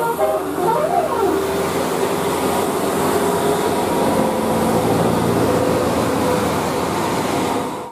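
A multi-tone Basuri 'telolet' bus horn ends its tune with one note that sweeps up and back down. Then a bus passes close, its engine and tyres making a loud steady rush with a faint held tone underneath, which cuts off suddenly near the end.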